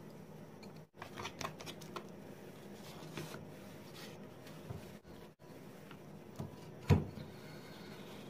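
Thin oak veneer sheets handled and slid over each other on a wooden workbench: soft rustling and rubbing, with one dull heavy thump about seven seconds in.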